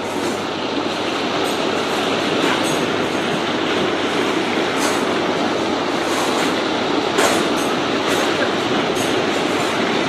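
Sea waves washing in over a rocky shore and draining back among the stones: a steady rushing wash with scattered sharp splashes.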